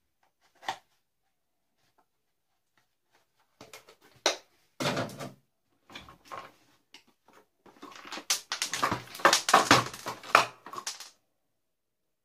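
Hard plastic parts of a Dyson DC41 vacuum cleaner knocking and clattering as it is taken apart by hand: a single click, then scattered sharp knocks from about four seconds in, building to a dense rattling clatter for the last few seconds.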